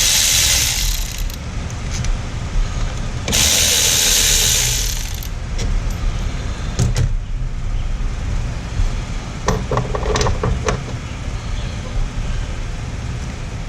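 Two hisses of residual refrigerant escaping as a Chevy 3500's A/C line is opened at the compressor: one lasts about a second and a half, the other about two seconds. These are followed by a few light tool clicks and a short metallic rattle about ten seconds in, over a steady low rumble.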